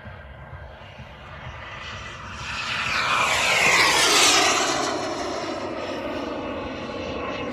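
Radio-controlled model airplane flying past. Its engine grows louder to a peak about four seconds in, then drops in pitch as it moves away.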